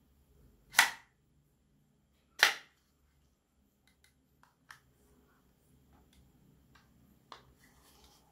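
Hinges of a plastic and aluminium foldable phone stand clicking as it is folded: two loud sharp clicks about a second and a half apart, then fainter clicks and light handling taps.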